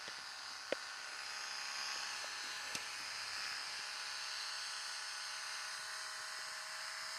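3D printing pen's small feed motor whirring steadily, running while no filament comes out of the nozzle. Two light clicks sound in the first few seconds.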